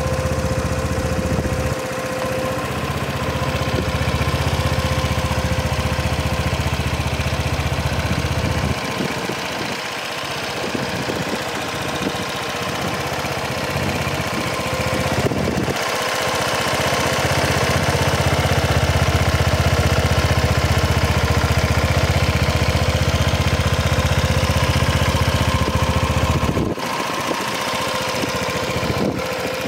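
Honda Vision 110 scooter's small single-cylinder four-stroke engine idling steadily. Its sound changes abruptly a few times.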